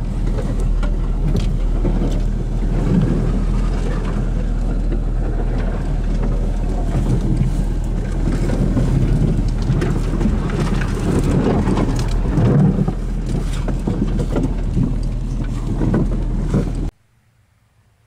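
Škoda Felicia driving over rough, overgrown ground, heard from inside the cabin: the engine runs steadily under frequent knocks and rattles, then cuts off suddenly about a second before the end.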